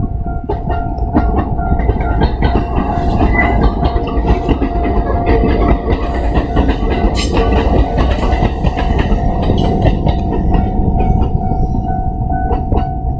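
A Kintetsu electric train passing close by over a level crossing, its wheels clattering on the rails, starting suddenly and easing off near the end. The crossing's warning bell rings steadily over it.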